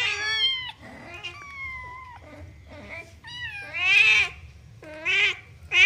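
Kitten meowing repeatedly in high-pitched calls, loudest about four seconds in.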